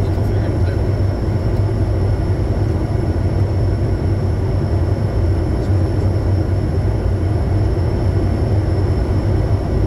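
Steady in-flight cockpit noise of a Bombardier Challenger 350 business jet on approach: a deep, even rumble of airflow and engines with a faint, steady high whine over it.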